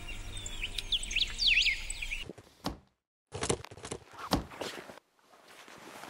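Green parrot giving a quick run of short chirping calls that swoop up and down, over a steady low hum; the sound cuts off about two seconds in. A few separate knocks and thuds follow.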